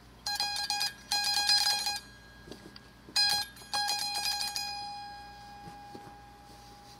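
Bell Harp Co. button-keyed zither sounding one note as a rapid run of repeated strikes on its metal strings, in four short bursts. The last burst rings on and slowly fades away.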